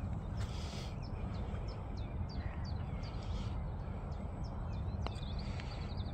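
Wind rumbling on the microphone while small birds chirp, a run of quick descending chirps followed by a short trill. About five seconds in, a single light click as the putter strikes the golf ball.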